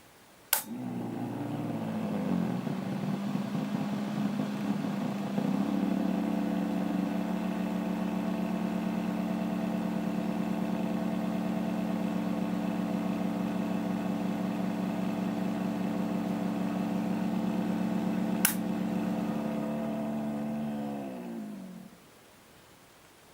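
PC power supply cooling fan switched on with a click, spinning up and running with a steady hum. About 18 seconds in, a second click cuts the power and the fan winds down, its pitch falling until it stops.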